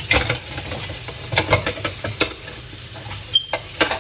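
Irregular scraping and scrubbing strokes against a hard surface, with one brief high squeak about three and a half seconds in.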